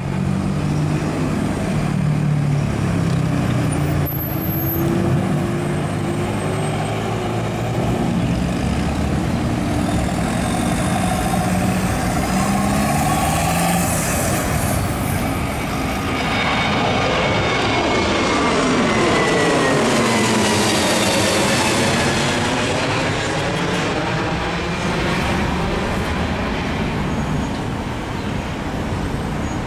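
Road traffic with vehicle engines running. From about halfway, an Airbus A320neo jet climbing out after takeoff passes over: its engine noise swells with a falling whine and a sweeping, phasing hiss, is loudest about two-thirds in, then fades.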